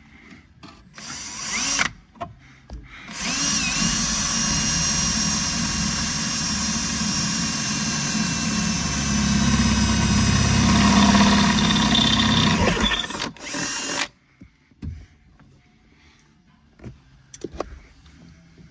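Power drill boring through the car's sheet-metal floorboard: a short burst, then a steady run of about ten seconds that stops abruptly, followed by a few light clicks.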